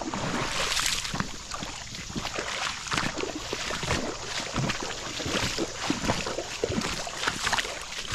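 Footsteps wading through a shallow creek, water sloshing and splashing irregularly with each step.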